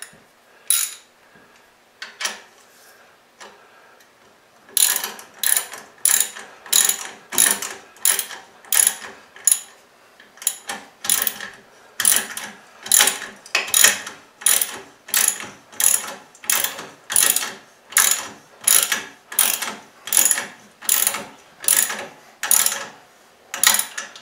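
Socket ratchet wrench clicking in quick, even strokes, about two a second, from about five seconds in, as a bracket bolt is tightened on a motorcycle's engine guard. A few single clicks come before the strokes begin.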